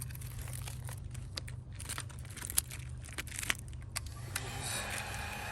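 Thin plastic tint film crinkling and crackling as it is handled, with scattered sharp clicks. About four seconds in, a heat gun switches on with a steady blowing hiss, heating the film to soften it.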